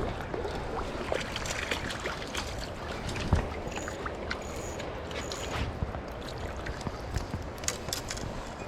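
River water running steadily, with scattered clicks and knocks over it. Three short high peeps come in quick succession about midway.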